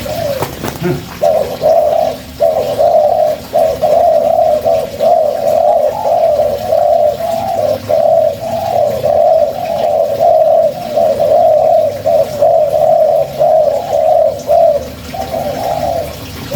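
Spotted dove (tekukur) cooing, a long run of repeated coos with brief pauses between phrases, starting about a second in and stopping shortly before the end.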